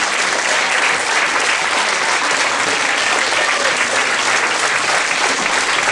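Steady applause from a theatre audience, joined by the cast clapping on stage: a dense, even clatter of many hands.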